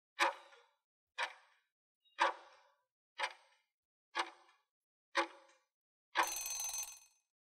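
Countdown timer sound effect ticking once a second, six clock-like ticks, then a longer, rougher sound lasting under a second about six seconds in, as the count runs out.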